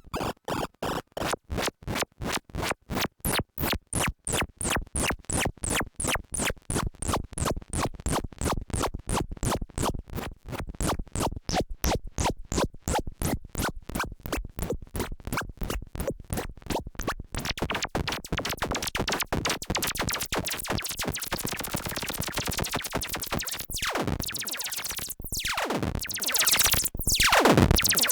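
Behringer Crave analog synthesizer playing a fast sequenced run of short, bright, buzzy notes, about four a second. After about 17 seconds the notes run together into one continuous sound, and near the end its filter sweeps down and back up twice.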